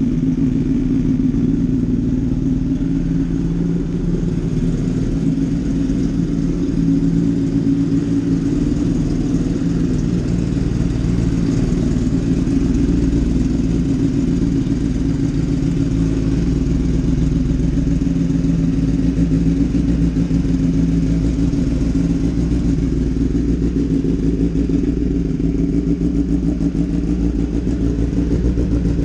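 Kawasaki ZX-10R's inline-four engine running steadily at a constant speed through an Arrow GP aftermarket exhaust, with no revving.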